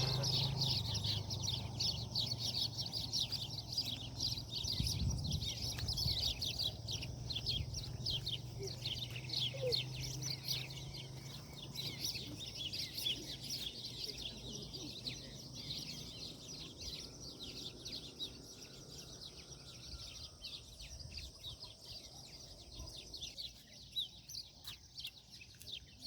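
Many birds chirping and calling at once, a dense chorus of quick high chirps that thins out over the second half. A low steady hum lies under the first half.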